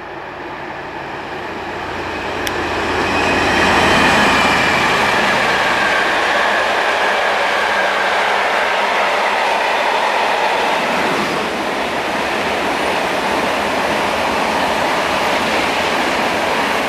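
Diesel freight locomotive passing close with a train of hopper wagons. Its engine rumble builds over the first few seconds, then gives way to a steady clatter of wagon wheels on the rails. An ICE high-speed train passes on a nearer track in the second half.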